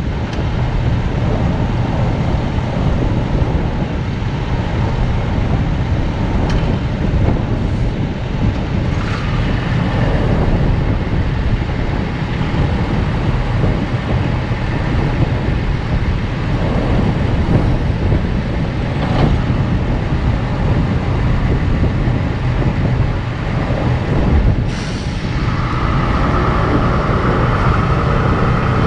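A heavy engine running steadily, with a few short clanks. Near the end a steady high whine joins in.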